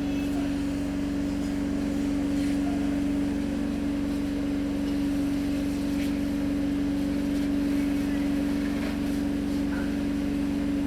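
A steady, unchanging mechanical hum with one strong fixed pitch.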